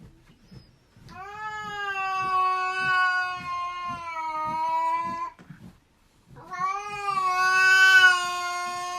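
A cat yowling: two long, drawn-out calls of several seconds each, the second starting about six and a half seconds in.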